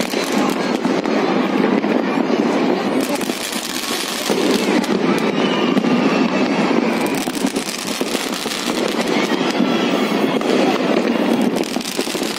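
Many fireworks going off at once: a dense, unbroken crackle of pops and bangs.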